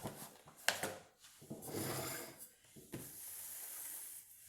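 Cardboard jigsaw puzzle pieces being handled and pressed into place as the last piece goes in: a few light clicks, then rubbing and shuffling.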